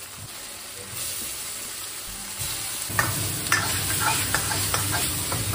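Spicy napa cabbage with scallion and ginger sizzling in oil in a wok over a gas flame as it is stir-fried, the sizzle growing louder about a second in. From about three seconds in, the metal ladle scrapes and knocks against the wok several times as the wok is tossed.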